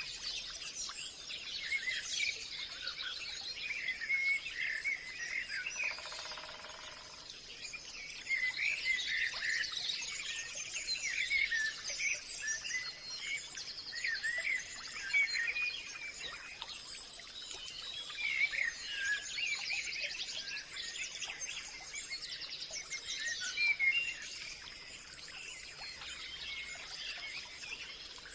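Several small birds chirping and trilling in quick, overlapping calls, over a steady high insect-like hum.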